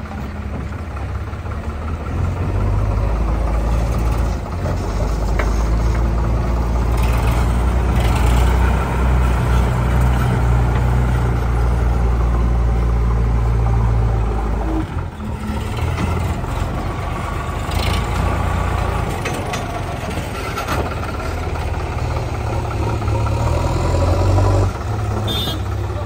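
JCB 3DX backhoe loader's diesel engine running under load as it digs and loads soil. It gets louder about two seconds in and drops briefly near the middle.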